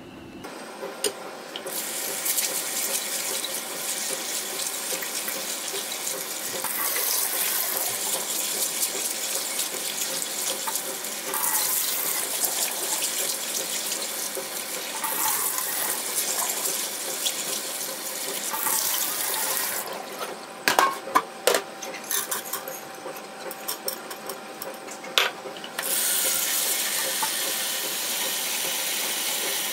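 Kitchen tap running into a bowl while split chickpeas are swished and rinsed by hand. About two-thirds through, the water drops away for a few seconds with several sharp knocks, then the tap runs steadily again, filling a steel pot with the dal.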